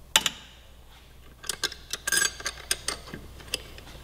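A Motion Pro chain breaker tool being worked with wrenches to press a rivet out of a motorcycle drive chain. Two sharp metal clicks come right at the start, then after a short pause a run of irregular light metallic clicks and ticks.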